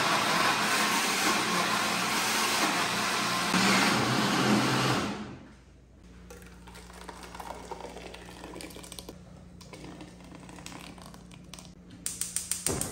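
Food processor in blender mode puréeing whole raw tomatoes, skins and seeds in and no water added. It runs steadily for about five seconds, then winds down and stops. A few faint knocks follow, and near the end comes a quick run of sharp clicks.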